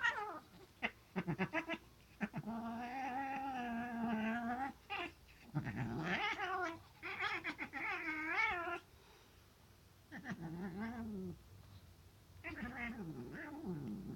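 Sphynx cat yowling: a few short cries, then about five long, wavering moans with short gaps between them. It is the cat's displeasure at sharing its bed with the chihuahua pressed against it.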